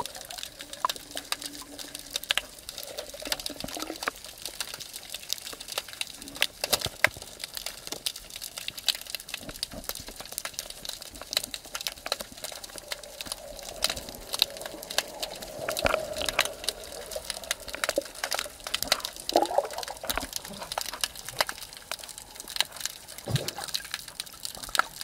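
Underwater ambience: a steady water hiss crowded with many sharp clicks and crackles, with a few brief low hums.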